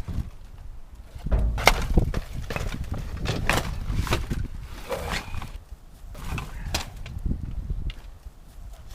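Irregular knocks, clunks and scrapes of containers and shelf parts being handled and pulled out of a long-unopened refrigerator.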